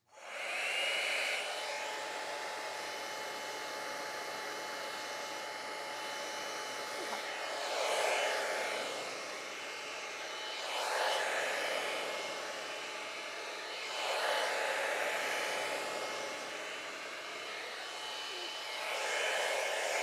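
T3 Micro AireBrush Duo hot-air brush running at its highest heat setting, 5: its motor spins up with a brief rising whine, then blows steadily with a high whine over the rush of air. The sound swells louder four times, every few seconds, as the brush is drawn through the hair.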